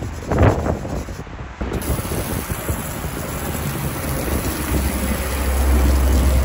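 A small stiff brush scrubbing a road sign, with one loud stroke about half a second in. After a cut, a steady hiss and patter of water spray hitting the sign as it is rinsed.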